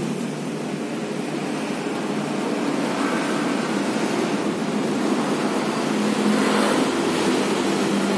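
Steady road traffic noise, growing a little louder in the second half as vehicles go past.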